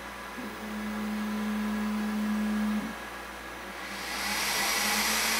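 Creality K1C 3D printer starting a print: a steady motor hum as the print head travels, stopping just before three seconds in. About four seconds in, the large chamber cooling fan switches on, and its rushing air noise rises and then holds steady.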